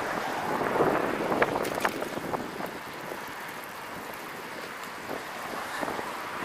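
Wind buffeting the microphone of a bicycle-mounted camera while riding along a road, with a few sharp clicks or knocks in the first two seconds.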